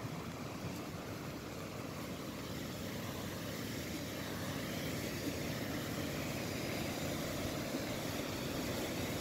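Steady rush of flowing stream water, growing slightly louder toward the end.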